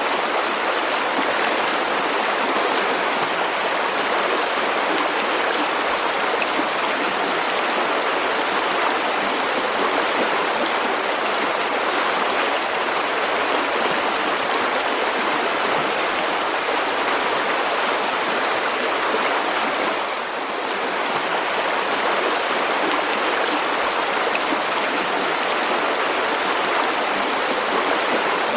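River water flowing steadily over rocks, a continuous rushing babble, dipping briefly about two-thirds of the way through.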